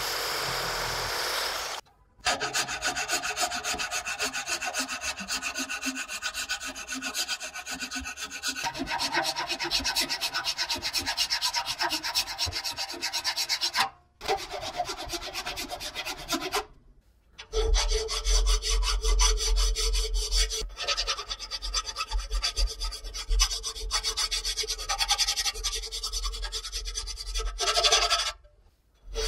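A Bosch jigsaw cutting a wooden board for the first two seconds or so. After a cut, there are long runs of quick, repeated hand-filing strokes: a file rasping the edges of a wooden template and then a steel plate held in a bench vise.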